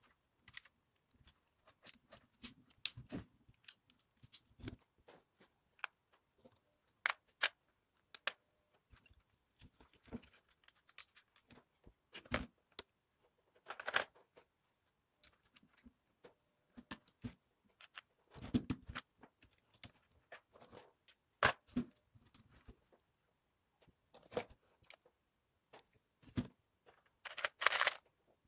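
Irregular clicks, taps and rattles of plastic LEGO Technic parts being handled and fitted together, with a few short bursts of rummaging.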